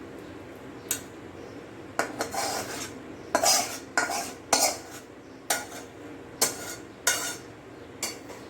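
Metal utensil scraping and stirring in a cooking pan, about nine separate short strokes at an uneven pace.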